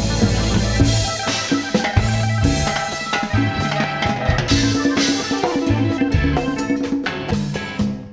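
Rock band playing an instrumental passage with no singing: a busy drum kit with snare and bass drum hits over sustained bass and guitar notes.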